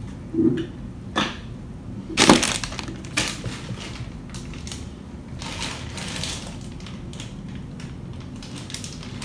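Plastic toy packaging being handled: a few sharp crackles, the loudest a little over two seconds in, then a stretch of rustling and crinkling.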